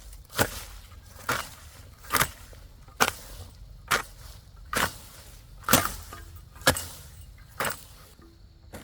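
A hand tool striking repeatedly in steady chopping blows, about one a second, nine strikes in all, stopping shortly before the end.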